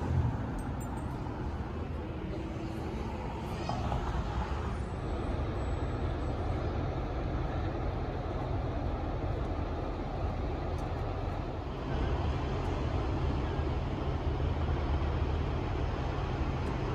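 Steady outdoor background noise with a low rumble, of the kind road traffic makes, getting a little louder about four seconds in and again about twelve seconds in.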